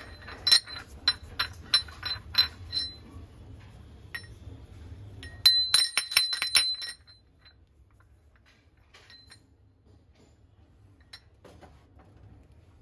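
Brass utensils clinking together as they are handled, each tap ringing briefly. There is a run of about seven taps in the first three seconds and a quick flurry of clinks a little past the middle, then only faint ticks.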